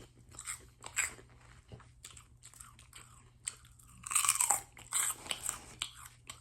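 Someone crunching and chewing crisp spicy pork rinds, a run of sharp crackly bites, with the densest, loudest crunching about four seconds in.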